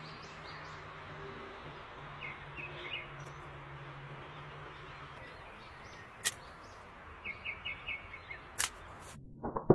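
Bamboo semi-automatic slingshot shooting twice, two sharp snaps a couple of seconds apart in the second half, over a steady outdoor hiss with birds chirping in short runs.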